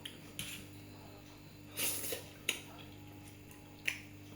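Eating and table-handling noises: a few short clicks and brief hissy bursts, the longest just under two seconds in, over a steady low electrical hum.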